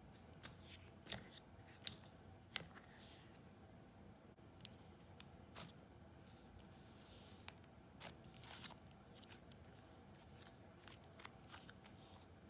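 Faint, scattered soft clicks and a couple of brief swishes from hands poking and stretching a soft butter slime, at little above near silence.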